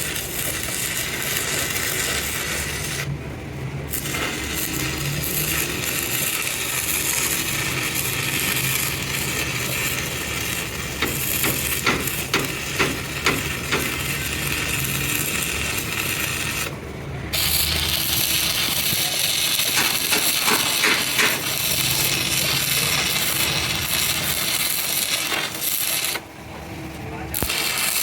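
Metalwork on a truck axle: a steady rasping, scraping noise with runs of sharp metal clicks, broken off abruptly a few times.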